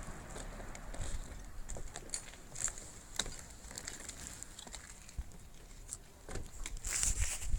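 Roofing work: scattered, irregular light taps and clicks, a little denser near the end.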